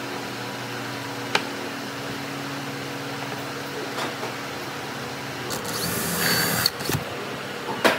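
Wooden blocks knocked down onto a wooden tabletop twice. Then a handheld drill whines as it bores into a wooden block for about a second, followed by a sharp knock near the end.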